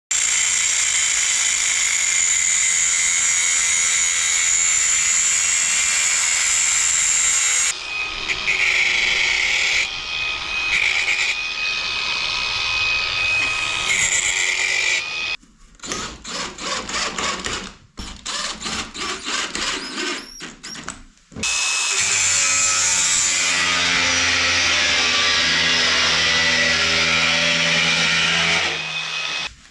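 A power tool running in several bursts: a long steady run, then stop-start runs with a high whine, a stretch of rapid clicking, and another long steady run that cuts off near the end.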